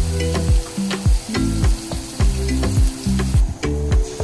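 Chopped onions and sweet peppers sizzling in oil as they sauté, stirred with a wooden spoon; the sizzle drops away about three seconds in. Background music with a steady beat and a bass line is the loudest sound.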